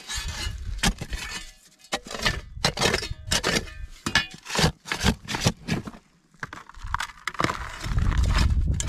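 Kobalt metal shovel digging into dry, gravelly dirt: a quick series of scraping, crunching stabs and scoops. Near the end, a shovelful of dirt and rock is tipped into a sifting pan.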